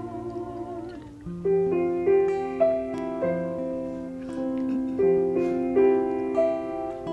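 Piano music: a held, wavering chord fades out about a second in, then piano notes and chords are struck one after another in a slow, even passage.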